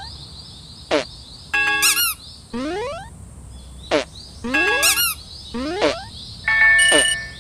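Synthetic cartoon sound effects in a repeating pattern about every three seconds: quick rising chirps, short falling zaps, and bursts of stacked bell-like electronic tones.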